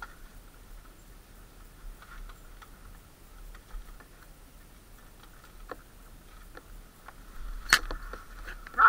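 Faint, muffled rattling and scattered knocks from a dirt bike picking its way down a rocky trail, picked up by the camera mounted on it, with a sharp knock a little before the end and louder clatter building right after.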